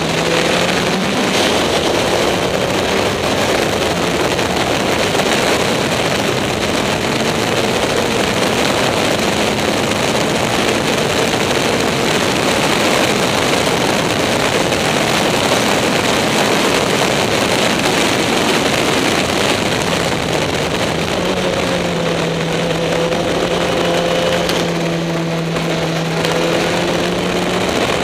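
Caterham SP/300.R race car's engine heard from the open cockpit at speed on track, with heavy wind and road rush over it. The engine note climbs under acceleration just after the start and again about two-thirds in, then holds.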